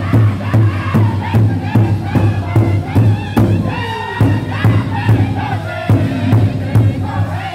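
Powwow drum group singing an intertribal song: several men's voices in unison, pitched high, over a large powwow drum that the group strikes together in a steady beat of about two and a half strokes a second.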